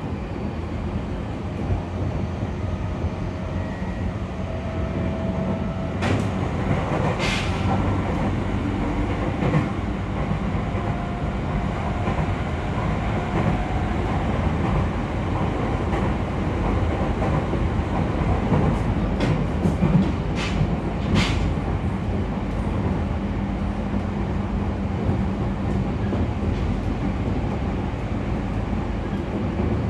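E231 series 0 electric commuter train with Mitsubishi IGBT-VVVF drive running steadily between stations: a continuous rumble of wheels on rail. A faint whine rises slightly in pitch over the first few seconds, and a few sharp clicks come about a fifth of the way in and again about two-thirds of the way through.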